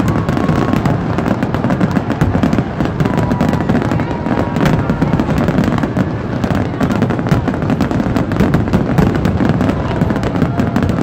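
Fireworks finale: a dense, unbroken run of loud bursts and crackling bangs, one on top of the next, with no pause.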